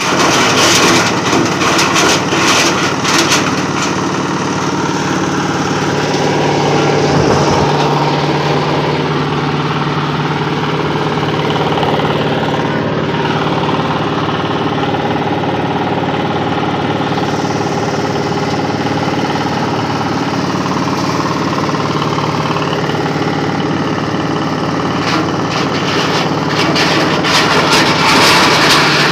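Areca nut peeling machine running, its drive motor humming steadily under a continuous mechanical clatter, with heavier rattling in the first few seconds and again near the end.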